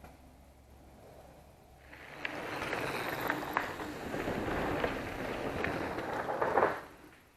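Mountain bike tyres rolling over a dirt trail, with crunching and small knocks from the bike, starting about two seconds in and loudest near the end as the rider passes close.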